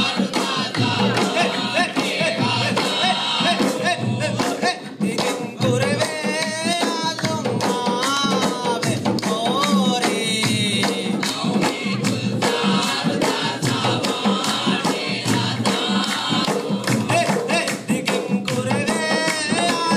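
Bodu beru: a row of large Maldivian hand-beaten barrel drums playing a dense, driving beat, with a group of men singing in chorus over it.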